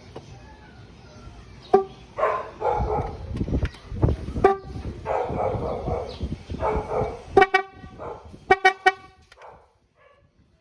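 Mitsuba Trad electric car horn sounding in a run of blasts: a brief toot, then longer blasts, then several quick toots near the end.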